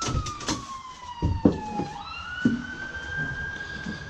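A wailing siren, faint, its pitch sliding slowly down, then jumping up and rising again about halfway through. Several knocks and thumps sound over it, the loudest about a second and a half in.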